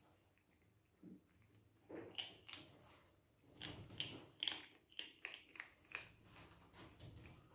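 Bengal kittens eating: a quick run of small chewing and clicking sounds, starting about two seconds in.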